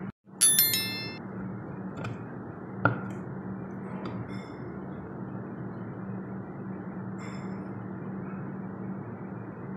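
A loud ringing clink of glass or ceramic dishware about half a second in, then a few fainter taps and clinks as a spatula works in a glass baking dish, over a steady low hum.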